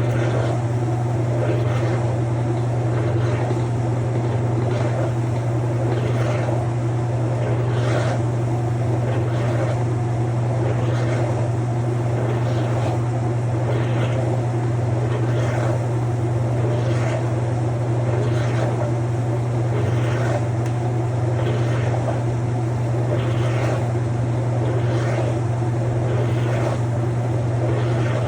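Vehicle running with a steady low drone and a faint scrape or click repeating about once a second: the noise the vehicle makes when braking.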